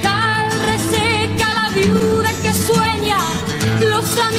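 Live band music between sung lines: acoustic guitar and drums under a held, wavering melodic line.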